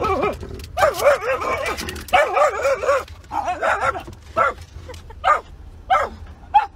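Dog whining and howling in long, wavering cries, then several short yelps in the second half.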